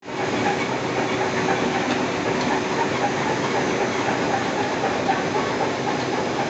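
Brick making machine running, a steady mechanical noise with faint hum-like tones held through it.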